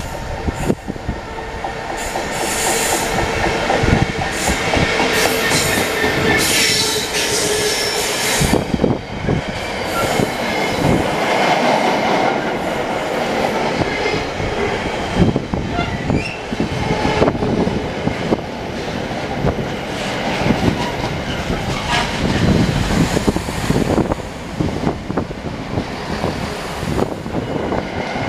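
Freightliner Class 66 diesel locomotive, with its EMD two-stroke V12, running through at the head of a container freight train, followed by a long run of wagon wheels clattering over the rail joints in a steady clickety-clack. Near the end a Class 165 diesel multiple unit passes close by on the nearer track.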